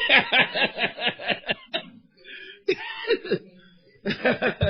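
Laughter: a quick run of short voiced "ha" pulses, breaking off and starting again twice, in three bouts.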